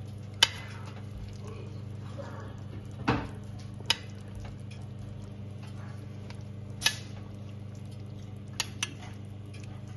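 A spoon clinking against a glass baking dish while sauce is ladled over pork ribs: about six sharp clinks spread out, the last two in quick succession. A steady low hum runs underneath.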